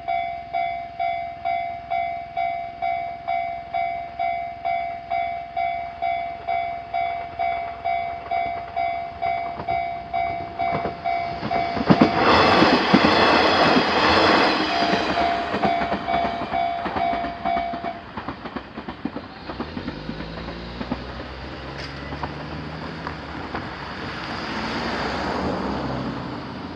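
Japanese level crossing's electronic warning bell sounding in a steady repeat, about one and a half strokes a second. A diesel railcar passes over the crossing with loud wheel and rail noise from about eleven to fifteen seconds in. The bell stops about eighteen seconds in, and the railcar's diesel engine hum goes on behind it.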